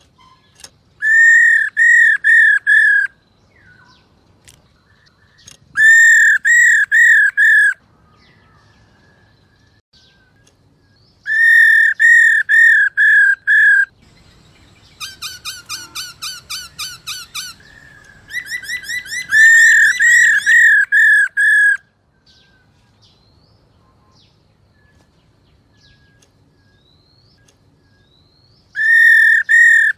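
Female black-throated laughingthrush calling: five loud bursts, each a string of five or six rounded notes, with a quicker, fainter run of downslurred notes in the middle. It is the female's rolling 'ro' call, which keepers play to stir male laughingthrushes into song.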